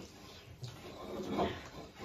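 A person eating noodles by hand: soft chewing and slurping, with two short louder mouth sounds near the middle.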